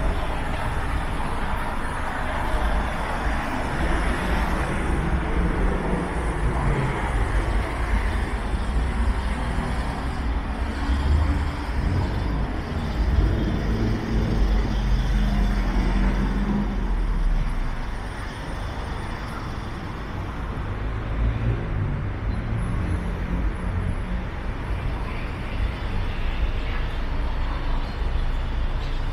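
City road traffic: a steady wash of passing vehicles with a deep engine rumble, louder in the first half and easing off a little about 18 seconds in.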